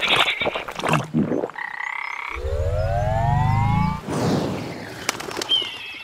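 Cartoon frog croaking sound effects, with a rising, sliding tone over a low rumble from about two to four seconds in.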